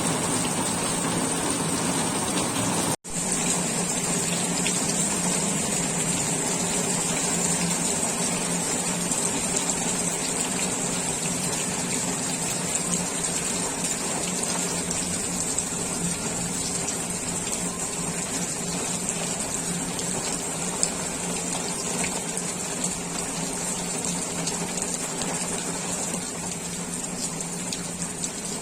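Heavy rain pouring down with water gushing, a steady rushing that drops out for a moment about three seconds in.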